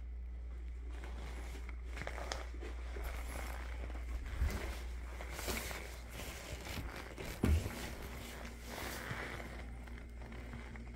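Camera handling and rustling over a steady low room hum, with two dull thumps. The second and louder thump, about seven and a half seconds in, comes as a mini-fridge door is pulled open, and a faint steady hum follows.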